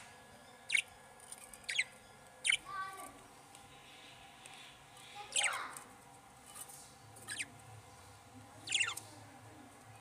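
Budgerigars chirping in a nest box: about seven short, steeply falling chirps at uneven intervals, the loudest about five and a half and nine seconds in.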